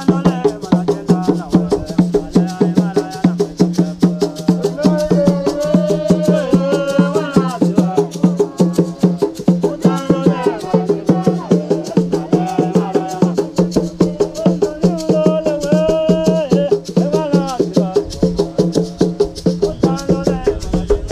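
Live hand-drumming on wooden drums at a quick, even beat, with voices singing over it in several phrases.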